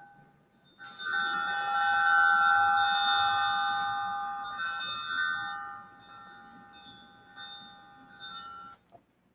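D-Lev digital theremin sounding a synthesized patch: a steady high tone with several overtones held at one pitch, coming in about a second in and fading away near the end.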